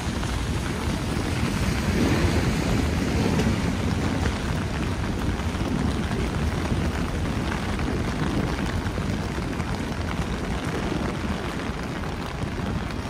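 Heavy rain falling on an umbrella mixed with city traffic on wet streets: a steady hiss over a low rumble, with a passing vehicle swelling louder about two seconds in.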